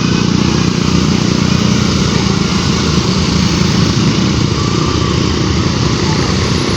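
A vehicle engine running close by, a loud, steady noise without letting up.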